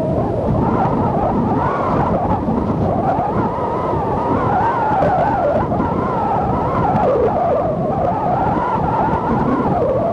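Strong wind howling, with a whine that wavers up and down in pitch, over a steady rush of surf and wind buffeting.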